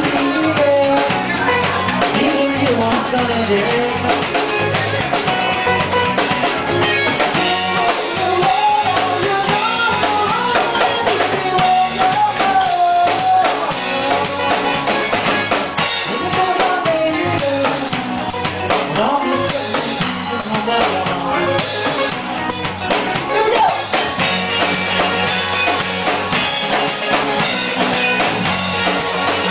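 Live rock band playing: drum kit driving a steady beat under electric guitar, with a wavering lead melody over the top.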